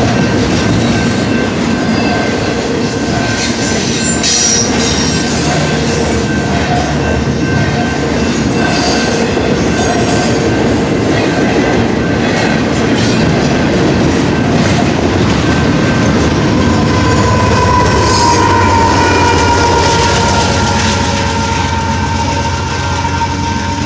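Union Pacific double-stack intermodal train passing close by: loaded well cars rolling with steady wheel-and-rail noise, clacking over joints and flanges squealing. In the last few seconds a steady high squeal and the deeper drone of the rear distributed-power diesel locomotive come past.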